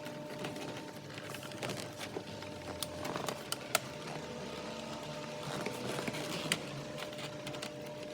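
Scattered small clicks and rustles of the gear-shifter assembly and its gaiter being handled inside the car's centre console, with two sharper clicks a few seconds apart, over a faint steady hum.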